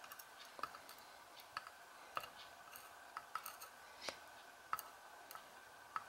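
Faint, irregular metallic clicks of steel tweezers handling small lock pins as they are laid out in the slots of a wooden pin tray.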